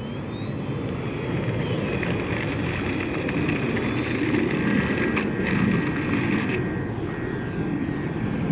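Radio-controlled foam Skytrainer model airplane's motor and propeller whining as it throttles up for its takeoff roll and climb-out. The pitch rises in the first couple of seconds, then holds as a steady high whine over a low rumbling noise.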